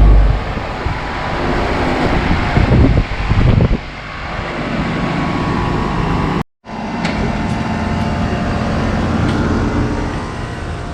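Daikin DX13 4-ton central air conditioner condensing unit shutting down: the compressor's low hum cuts off right at the start, leaving the rush of the condenser fan with some uneven louder noise for a few seconds. The sound breaks off abruptly about six and a half seconds in and resumes as a steady mechanical rush.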